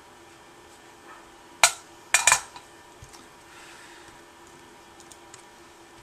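Sharp metallic clinks from soldering tools and the helping-hands jig being handled: one about one and a half seconds in, then a quick pair half a second later, followed by a few faint ticks.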